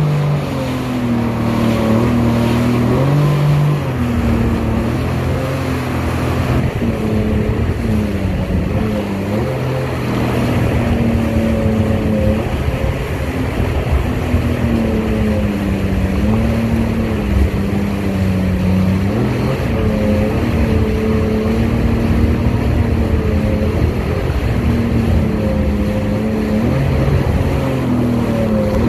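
Jet ski engine running at speed, its note rising and falling again and again with the throttle and the chop, over the rush of water spray.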